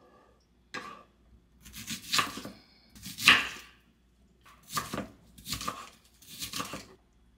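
Kitchen knife cutting through an onion in about seven crisp strokes at an uneven pace, the loudest about three seconds in.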